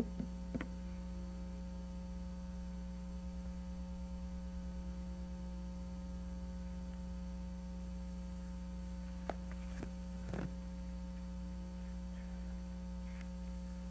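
Steady electrical mains hum, with a few faint, brief knocks: one near the start and several around nine to ten seconds in.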